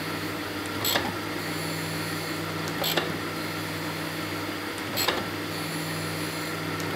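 Jones and Shipman 540 surface grinder running steadily, its grinding wheel taking passes across a thin steel vise jaw under flood coolant: a constant hum with a hiss of grinding over it, and a short sharp click about every two seconds.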